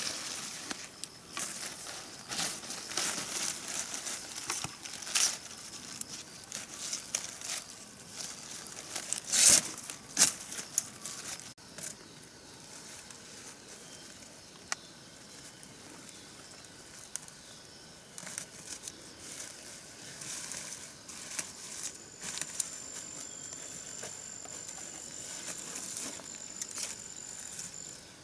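Irregular rustling and crinkling with scattered sharp snaps, busiest and loudest in the first half. A thin steady high tone sounds for several seconds near the end.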